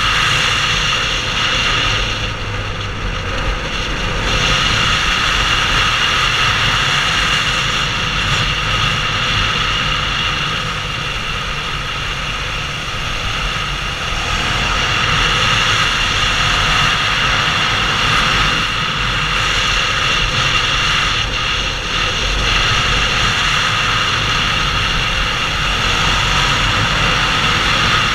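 Suzuki SV650's V-twin engine running as the motorcycle is ridden at speed through bends, mixed with wind rushing past a helmet-mounted microphone. The sound eases slightly a few seconds in and again in the middle, then picks back up.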